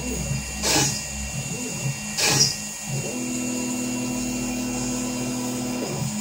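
CNC router's dedicated 2 HP spindle running with a steady whine, while the stepper motors drive the gantry: a steady motor tone from about three to six seconds in as the axis travels. Short bursts of noise come twice in the first half.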